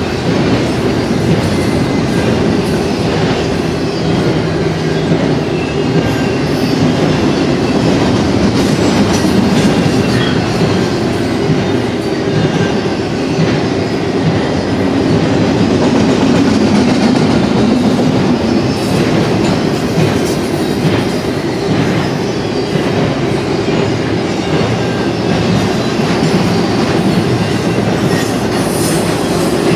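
Freight cars of an intermodal train, double-stack container well cars and then spine cars carrying trailers, rolling past with their steel wheels on the rail. The sound is a steady, loud rolling noise that stays even throughout.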